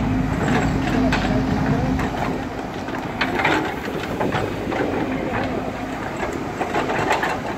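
Excavator's diesel engine running with a steady hum that eases off about two seconds in. Through the whole stretch come repeated sharp metallic clanks and knocks from the machine working.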